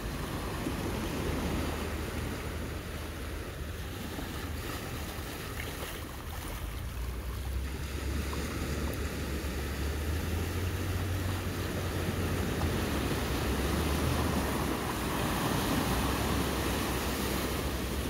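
Small ocean waves breaking and washing up over a shallow sandy beach, a continuous surf wash that swells louder in the second half as the water runs up the sand.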